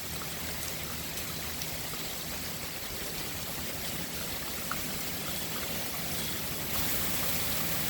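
Heavy rain pouring down steadily with water running and splashing; the downpour grows louder and hissier about seven seconds in.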